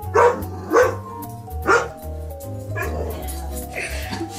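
A large black dog barking three times in the first two seconds, at its own reflection in a mirror, over background music with a steady bass line.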